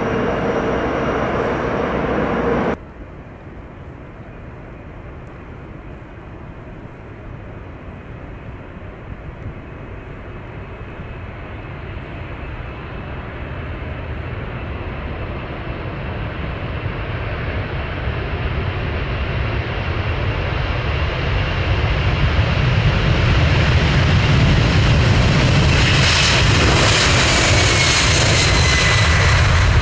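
Jet airliner engines: after an abrupt cut about three seconds in, the roar of an approaching jet builds steadily for some twenty seconds, loudest near the end, where a high whine falls in pitch as it passes. Before the cut, a louder steady engine sound with a held tone.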